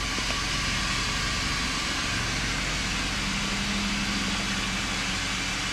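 Steady rushing background noise with a low hum underneath, holding an even level throughout. A steady low drone joins about halfway through.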